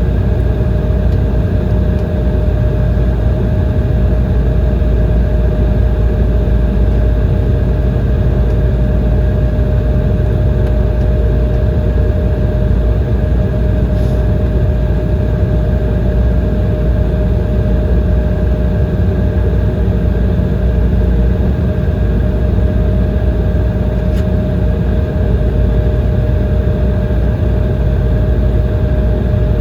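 Embraer ERJ-170's GE CF34-8E turbofans running steadily, heard inside the cabin as a deep rumble with a steady high whine.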